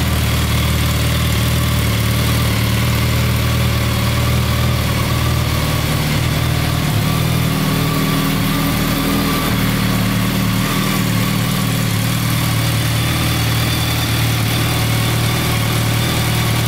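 BMW K1200S inline-four engine idling steadily, its note shifting slightly partway through.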